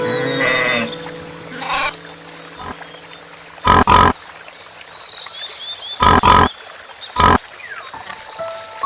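An animal's short, loud calls: five of them, in two pairs and then a single, after a few softer calls near the start.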